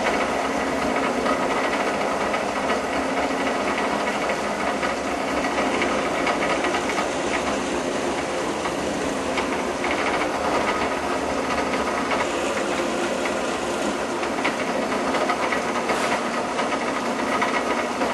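Drill press running steadily while a 17/64 brad point bit bores holes about 3/8 inch deep in a 3/4-inch wooden dowel.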